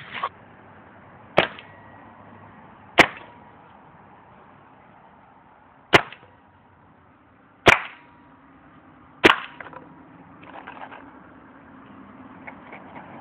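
VL Triton 2 paintball gun firing single shots: five sharp cracks spaced one to three seconds apart, after a softer one at the start, then faint clattering near the end.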